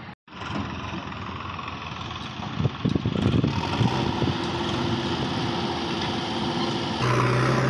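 Diesel farm tractor engines running at a sand pit, with a few knocks about three seconds in. A steady engine tone holds from about four seconds in, and the engine noise grows louder near the end.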